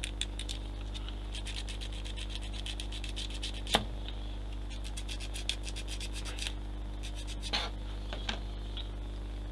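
Sanding strokes on small plastic model-kit track parts, rapid and back-and-forth, in two runs, cleaning notches off the undersides. A sharp click a little under four seconds in is the loudest sound, with a couple of lighter taps near the end, over a steady low hum.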